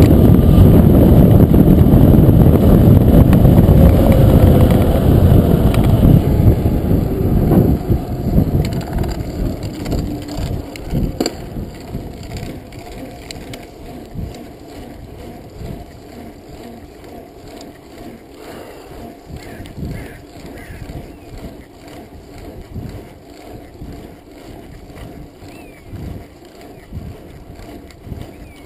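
Mountain bike ride heard through wind rushing over the microphone, loud for the first several seconds, then dropping away to a quieter rolling noise of knobby tyres on the road with frequent small clicks and rattles from the bike.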